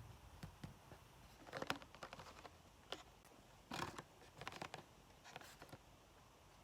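Hands handling a Hot Wheels toy car's blister-card packaging: scattered clicks and short scratchy rustles of plastic and card, in a few brief bouts.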